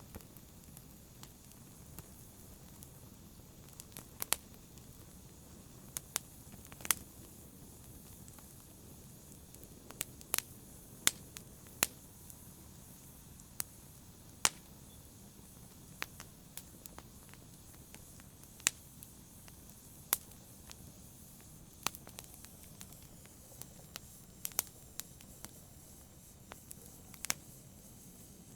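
Wood fire burning in a fireplace, crackling, with irregular sharp pops every second or two over a soft steady hiss.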